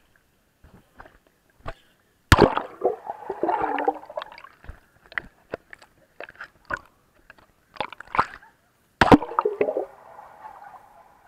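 Swimming-pool water splashing and sloshing around the camera, with sharp knocks and clicks of the camera being handled. There are two louder bursts of splashing, about two seconds in and about nine seconds in.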